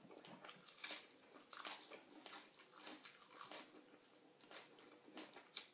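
A person chewing and biting a mouthful of raw shrimp salad and sticky rice, with faint, irregular wet clicks and smacks. The loudest come about a second in and near the end.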